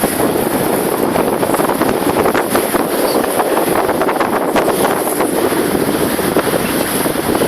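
Wind buffeting the microphone over the steady rush of a water taxi under way, its motor and bow water blending into one even noise.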